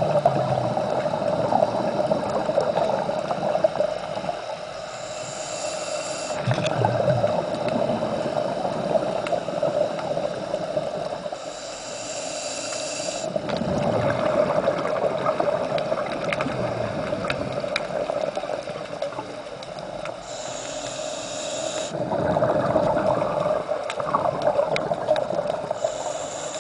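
Scuba diver breathing through a regulator underwater: a hissing inhale about every six to nine seconds, each followed by several seconds of bubbling exhaust.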